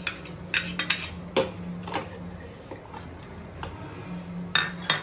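Utensils clinking and scraping against a stainless steel pressure cooker pot as cooked sago is tipped into boiling milk and stirred in with a spatula: a few sharp clinks in the first two seconds and the loudest pair near the end.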